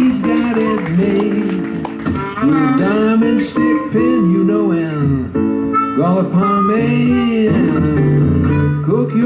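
Live acoustic blues in A: a harmonica solo of bent, gliding notes over two acoustic guitars.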